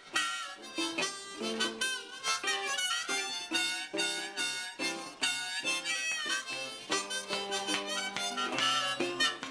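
Blues harmonica in a neck rack played over a strummed guitar: sustained, wavering harmonica notes above a steady strumming rhythm.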